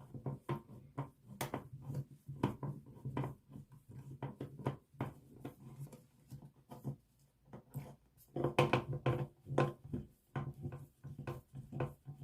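Irregular small clicks, taps and knocks of hands working a wall toggle switch out of its electrical box, busiest about eight seconds in.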